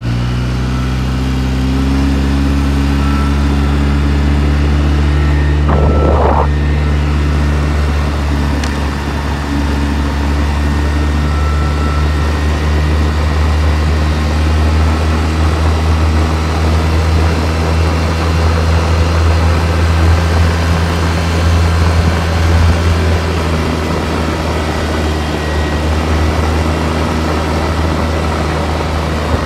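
Off-road vehicle engine running at a steady speed while riding, a low, even drone with little change in pitch, with a brief noise about six seconds in.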